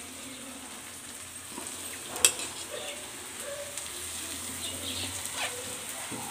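Spiced masala frying gently in a kadai, a steady sizzle, as handfuls of chopped fenugreek leaves are dropped onto it. A sharp clink about two seconds in, and a fainter one later.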